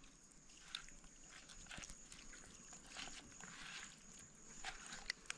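Faint, soft wet handling noises of bare hands rubbing spice paste into cut-up raw piau fish pieces on a cutting board, with a few small clicks. A faint steady high tone lies underneath.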